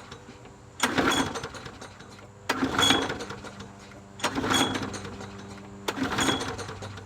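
Bolens push mower's recoil starter pulled four times in a row, about a second and a half apart, each pull cranking the engine briefly without it catching: the mower won't start.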